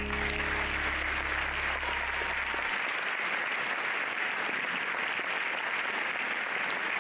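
Audience applauding, starting suddenly as the song's last low held note dies away in the first few seconds.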